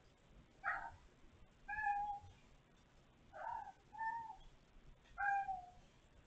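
A kitten meowing: five short, high mews spread across a few seconds, the last one slightly longer.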